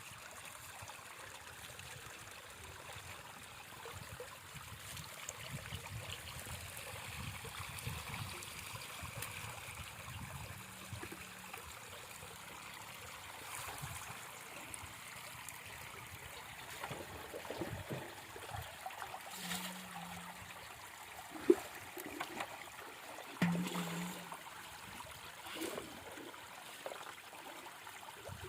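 Water trickling and splashing, with a single sharp knock about two-thirds of the way through.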